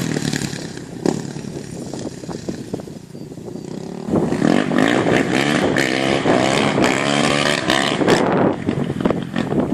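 Polaris Predator 500 ATV's single-cylinder four-stroke engine idling, then revved repeatedly from about four seconds in, its pitch rising and falling with each blip of the throttle.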